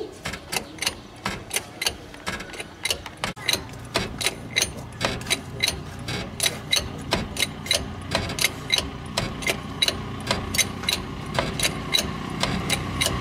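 Hydraulic bottle jack being pumped by its handle: a steady run of sharp clicks, about three a second, one for each short pump stroke. A low rumble builds up beneath the clicks from a few seconds in.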